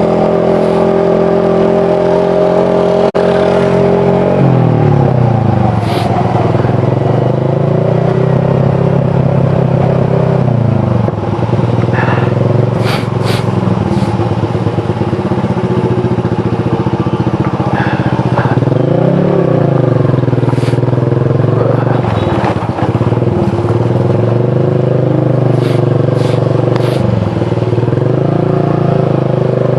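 Motorcycle engine running while riding. Its pitch holds steady for about four seconds, then falls and rises again and again as the throttle is eased and opened. A few short sharp clicks are heard through it.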